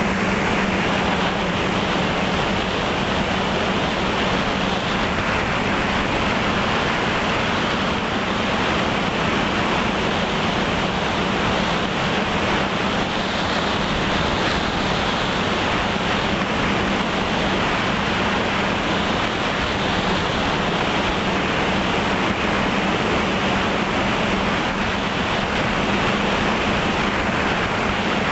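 Multirotor drone's electric motors and propellers running steadily, heard through the onboard camera's microphone: a constant low hum under a steady rush of wind and prop wash.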